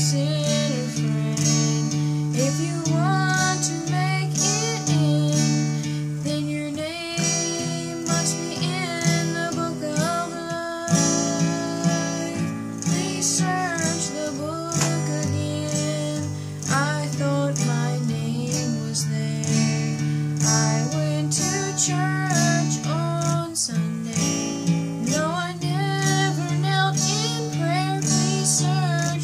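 A woman singing a gospel song while strumming an acoustic guitar, with the voice carrying a bending melody over steady chords.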